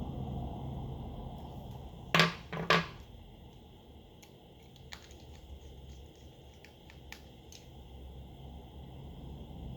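Small tools and phone parts being handled on a workbench: two short scratchy noises about two seconds in, half a second apart, then a few faint small clicks over a steady low hum.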